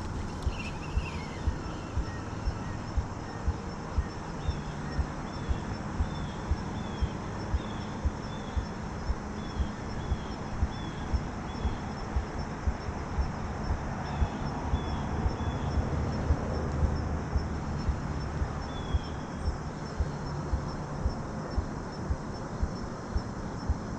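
Steady footsteps, about two a second, with a bird calling in repeated series of short, high, down-slurred chirps.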